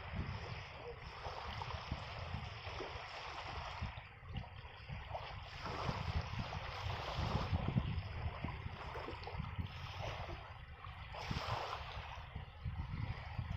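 Wind rumbling on the microphone over the wash of waves and moving water, rising and falling in gusts.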